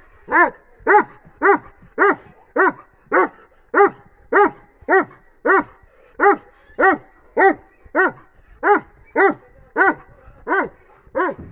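Bully x Dogo Argentino cross dog barking over and over in a steady rhythm, about two short barks a second.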